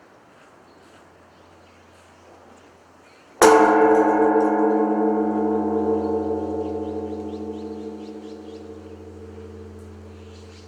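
Zojoji Temple's great bronze bonsho temple bell struck once about three and a half seconds in, then a long ringing hum of many tones that slowly fades. It is tolled as the evening bell.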